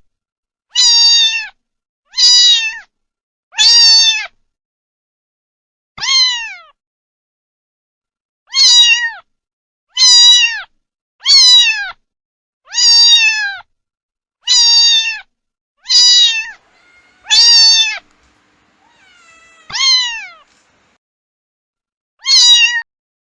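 Young kittens meowing: about a dozen short, high-pitched meows, each falling in pitch, one every second or two with silence between them.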